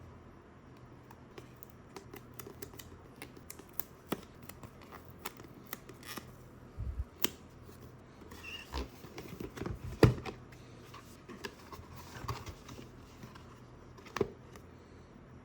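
Hands handling a boxed gaming mouse and mousepad and their packaging: scattered taps, clicks and rustles, with a sharp knock about ten seconds in, over a faint low hum.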